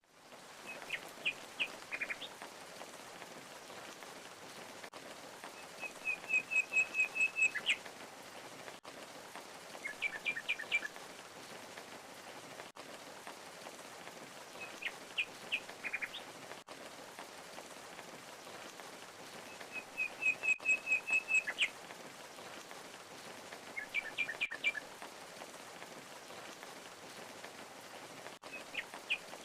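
Steady rush of falling water from a waterfall, with a songbird calling in short phrases every few seconds, among them a quick run of about eight identical chirps. The same set of phrases comes round again about every fourteen seconds.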